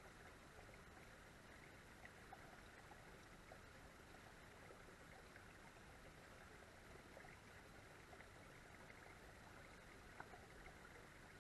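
Near silence: a faint steady hiss, with a few small clicks.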